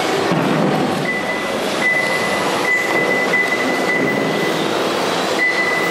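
Electric radio-controlled rally cars running on the track: a steady whir of motors and tyres, with a thin high whine that comes and goes through the middle and returns near the end.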